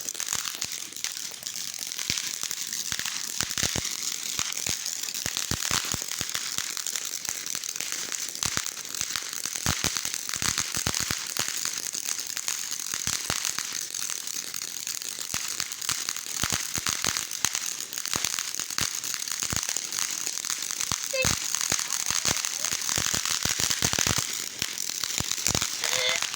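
A box burning in an open fire, crackling continuously with rapid, irregular snaps and pops.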